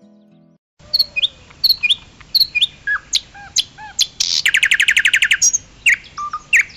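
A small bird calling: a string of short, sharp chirps a few tenths of a second apart, with a quick trill of about a dozen rapid notes in the middle.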